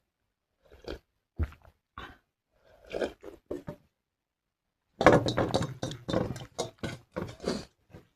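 Close-up eating sounds: a person chewing and smacking on watered rice and fried mushroom. A few scattered mouth noises come first, then a second of silence, then a dense run of rapid chewing.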